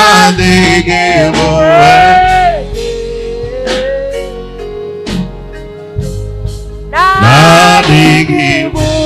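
Live gospel praise song: voices singing the chorus over keyboard and band accompaniment. The singing drops out in the middle, leaving the instruments, and returns about seven seconds in.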